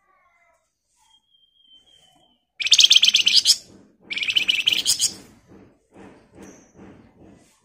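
Caged Javan fulvetta (flamboyan) giving a faint thin whistle, then two loud, rapid rattling trills of about a second each. A run of soft low knocks follows near the end.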